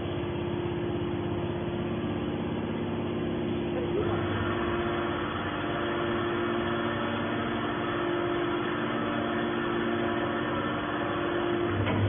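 Steady machine hum from a hydraulic can baler's motor and pump running. About four seconds in the sound grows fuller with higher tones and then stays steady.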